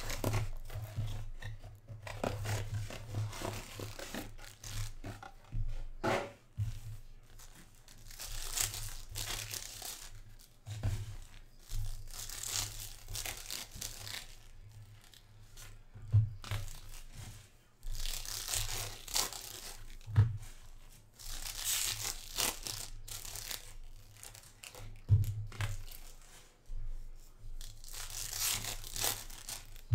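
Plastic wrappers of Panini Mosaic trading-card packs being torn open and crinkled in several separate bursts, with a few soft thumps between them.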